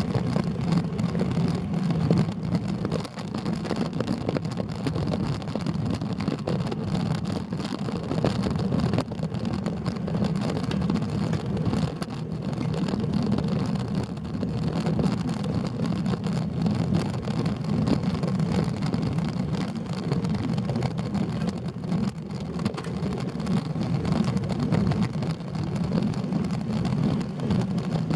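Steady low rumble of wind buffeting a bicycle-mounted camera's microphone, mixed with road-bike tyre noise on asphalt, riding uphill at a moderate pace.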